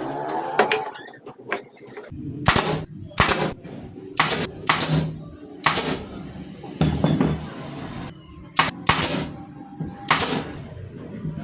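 A series of sharp, irregularly spaced strikes during wood assembly, about eight in all, the first coming about two seconds in.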